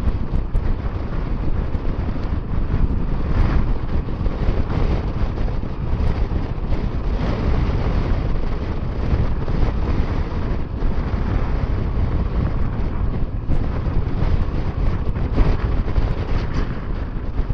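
Steady wind buffeting the microphone on a moving Honda Transalp 700 motorcycle, with engine and road noise underneath.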